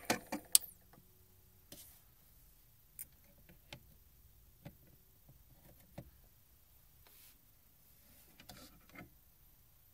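Light clicks and taps from a record player being handled: a quick cluster of sharp clicks at the start, then scattered faint clicks every second or so.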